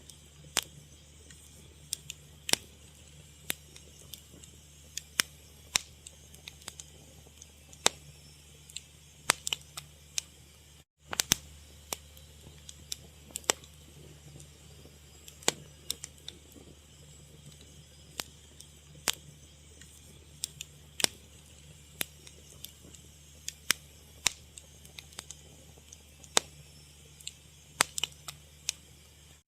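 Wood fire crackling: irregular sharp pops and snaps, a few a second and uneven in loudness, over a faint low rumble. The sound cuts out for a moment about eleven seconds in.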